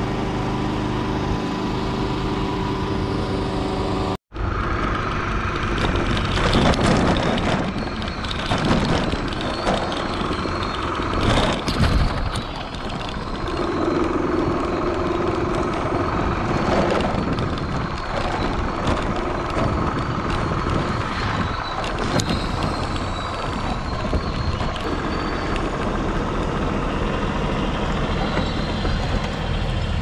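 Car driving, heard from inside the cabin: a steady engine hum at first, cutting out abruptly about four seconds in, then a rougher rumble of engine and road noise with scattered knocks.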